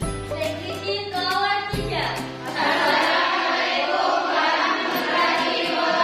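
Music with several voices singing; the singing gets fuller and louder about two seconds in.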